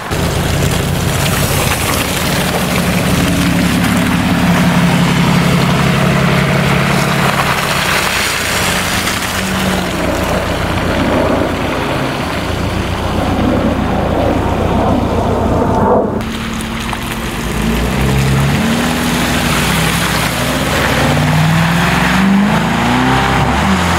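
Car engines running at low revs, their pitch rising and falling as they move off, with an abrupt change in the sound about sixteen seconds in.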